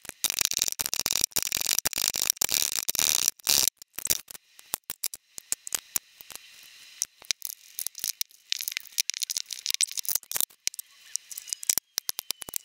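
Sped-up sounds of hand-working bassoon cane: a rapid, dense scraping of a profiler blade shaving the bark off the cane for the first few seconds. Then come scattered sharp clicks and ticks, with another stretch of scraping, as the cane is cut to shape with a knife and scored.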